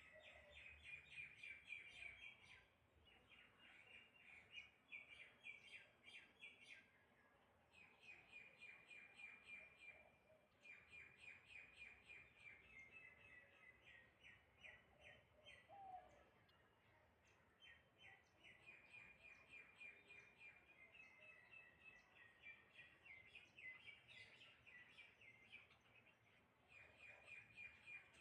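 Small birds chirping faintly in quick runs of short, high notes, phrase after phrase with brief pauses between.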